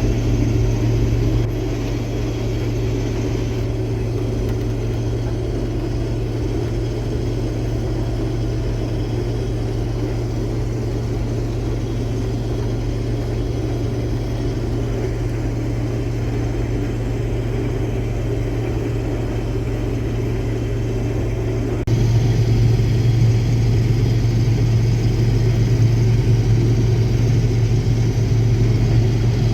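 Case IH Axial-Flow combine's diesel engine running steadily under load, a constant low hum. The level drops slightly about a second and a half in and rises suddenly about 22 seconds in.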